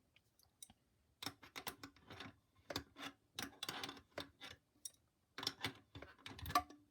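Bursts of quick small clicks and ticks: hand tools and loose bolts and nuts being handled while a motor is unbolted from an industrial sewing machine.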